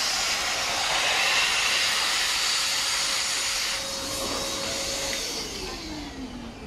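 Electric air blower filling a PVC inflatable horse: a steady rush of air that drops in level about four seconds in, then near the end a whine that falls in pitch as the blower winds down.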